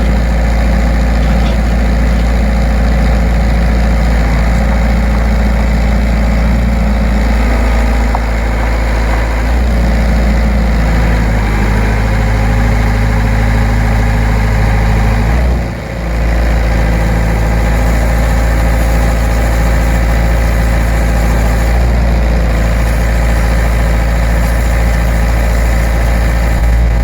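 Volvo ECR88 compact excavator's diesel engine running steadily, its note shifting a few times, with a brief dip in level about two-thirds of the way through.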